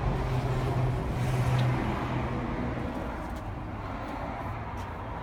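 A motor vehicle's engine running with a steady low hum under a rushing noise, a little louder in the first second or so and then easing slightly.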